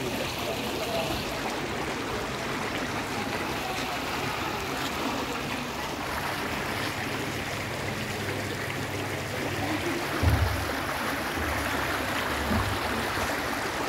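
Steady rush of water running in a flooded street drain. A few low bumps hit the microphone about ten seconds in and again near the end.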